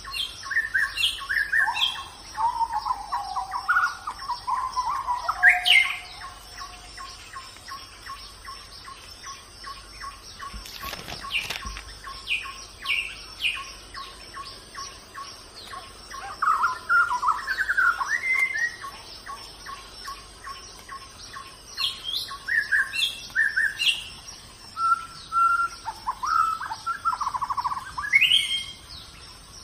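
Birds chirping and warbling in several bursts of calls, over a steady high-pitched hum.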